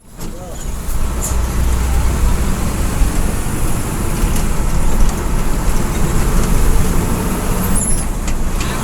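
Bus running on the highway: a steady low engine and road rumble that fades in over the first second.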